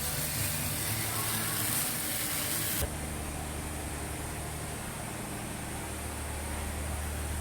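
Steady low machinery hum with an even hiss, changing abruptly to a quieter, duller hum about three seconds in.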